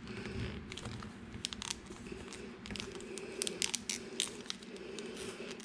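Crinkling and crackling of a Goldback gold-foil note as fingers fold and crease it, with a run of sharp crackles clustered in the middle.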